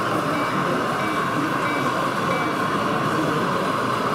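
Model diesel locomotive and freight train running along the layout track: a steady rolling hum, with a short high beep repeating about every two-thirds of a second, over faint background chatter.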